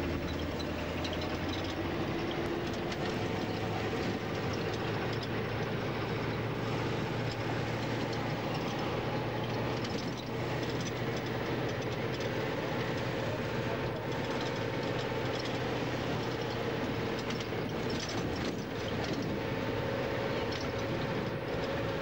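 Cabin noise inside a public route bus: its engine running with road noise, the engine note rising slowly, with a few light knocks.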